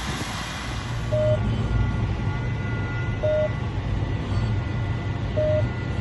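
Diesel engine of farm harvest machinery running steadily, with a short warning beep repeating about every two seconds, three times.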